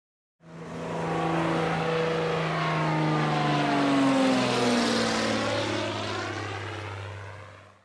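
An engine passing by: a hum with a broad hiss that swells, peaks about four seconds in and fades away, its pitch falling steadily as it goes past.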